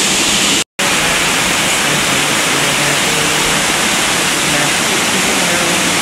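Waterfall close by: a steady, loud rush of falling water, with a split-second gap of silence under a second in.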